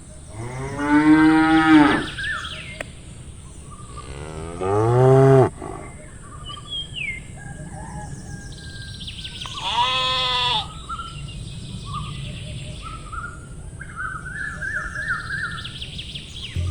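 Cows mooing, three long calls several seconds apart, with birds chirping faintly in between.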